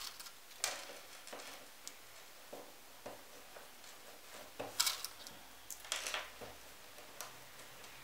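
Faint, scattered clicks and light rustles of hands handling a fabric disc, a strip of elastic and pins on a tabletop while the elastic is pinned in place.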